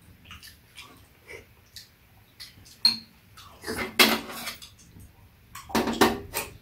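Metal spoons clinking and scraping against ceramic bowls of red bean porridge in a run of light, scattered taps. About four seconds in and again near the end, louder noisy stretches of slurping as porridge is taken off the spoon.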